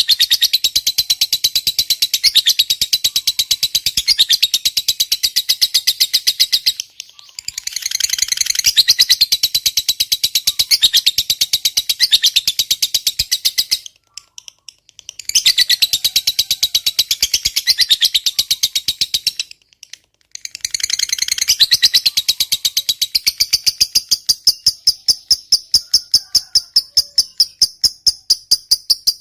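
A lovebird giving its long, rapid chattering call (ngekek panjang), a fast, even run of high chirps kept up for several seconds at a time. It breaks off briefly three times before starting again.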